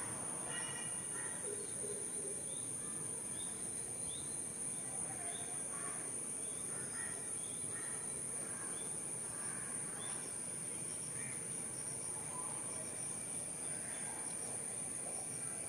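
Outdoor ambience of insects singing a steady, high-pitched drone, with scattered short, faint bird chirps, a run of them about two a second a few seconds in.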